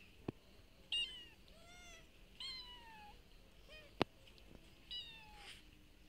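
Street cat meowing about five times, short calls that fall in pitch, with two sharp clicks in between.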